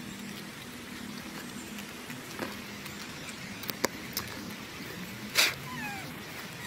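Macaque calls: a few short high squeaks gliding downward near the end, after scattered sharp clicks and a short burst of noise.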